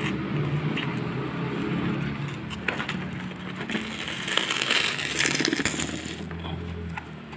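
Crumbly white insulation being broken and torn away by hand from the underside of an ice cream roll pan, crunching and crackling, loudest about four to six seconds in, over a steady low hum.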